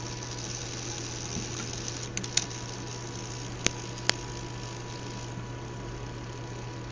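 Small fischertechnik electric motor running fast on PWM drive at maximum setting: a steady hum with a thin steady whine, and a few sharp clicks about two, three and a half and four seconds in.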